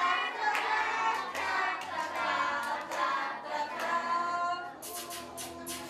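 High-pitched voices in a wordless sing-song, broken by sharp clap-like strikes, with a quicker run of strikes near the end.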